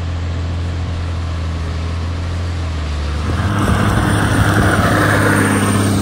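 Steady hum of heavy diesel machinery. About three seconds in it changes to the louder, closer run of a Cat Challenger tracked tractor's diesel engine pulling a J&M grain cart through the field, with a rushing noise over the engine.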